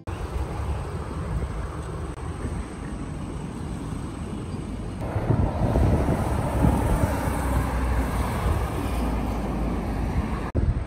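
Road traffic noise from a street, with wind rumbling on the microphone; it gets louder about halfway through.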